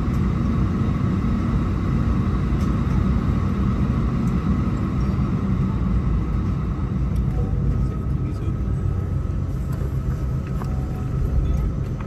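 Airbus A320's CFM56 turbofan engines heard inside the cabin at taxi power: a steady low rumble with a faint steady whine over it as the aircraft taxis.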